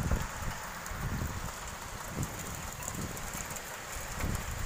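Heavy rain falling steadily, with irregular low rumbles of wind on the microphone.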